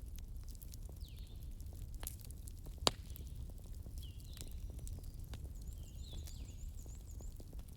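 Wood fire crackling, with scattered sharp pops over a low steady rumble and one loud snap about three seconds in. Short chirping calls repeat about once a second, with a quick run of higher chirps about six seconds in.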